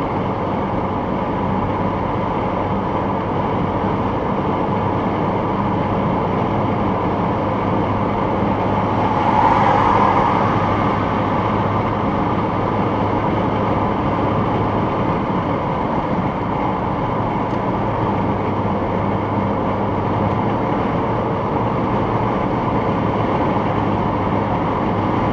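Car cabin noise at motorway speed, as picked up by a dashcam: steady road and engine drone with a low hum. There is a brief swell in the noise about ten seconds in.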